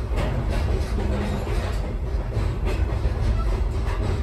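Ride noise of a railroad caboose rolling along the track: a steady low rumble of wheels on rail, with a few scattered clicks and knocks.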